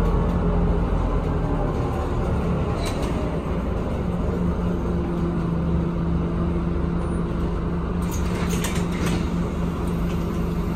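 Scania Citywide LFA articulated city bus heard from inside the cabin: its engine runs with a steady low drone as the bus comes to a stop. About eight seconds in, a quick run of clicks and short hisses comes as the passenger door opens.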